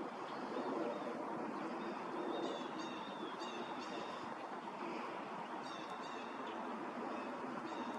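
Short, high bird chirps in a few quick clusters, a couple of seconds in and again about six seconds in, over a steady background rumble.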